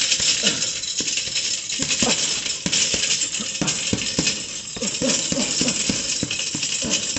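Boxing gloves striking a double-end bag in quick, irregular punches, the bag snapping back on its cord between hits.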